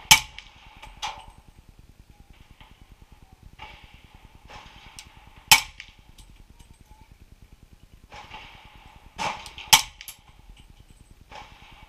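Suppressed 300 Blackout AR-style rifle fired three times, each a sharp crack, the shots about five and four seconds apart. Fainter, duller bangs come between the shots.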